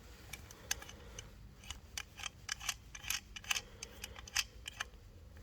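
Irregular light clicks and ticks of small metal parts being handled and fitted onto a hand-operated thread-insert tool.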